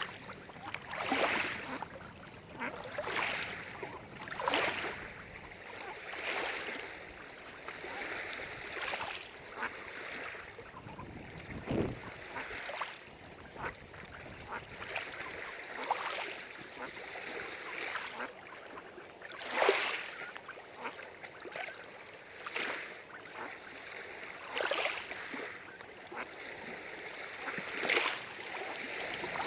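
Small waves lapping and splashing against a lake shore, each splash arriving every second or two at irregular intervals.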